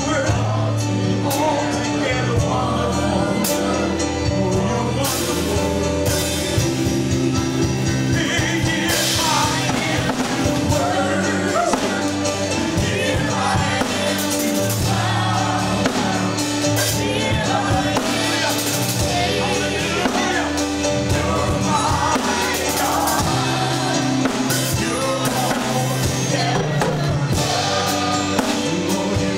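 Worship song: voices singing over a band, with held bass notes and drums keeping a beat.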